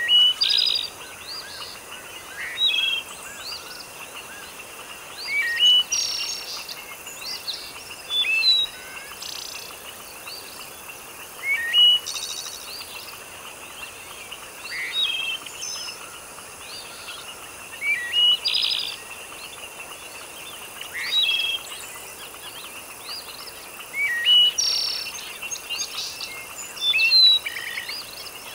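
Birds chirping and calling in short bursts that recur every few seconds, some calls sliding upward, over a steady background hiss.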